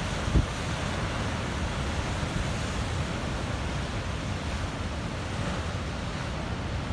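Pacific surf breaking against a rocky shore outcrop, a steady rush of waves with wind noise on the microphone. One low thump about half a second in.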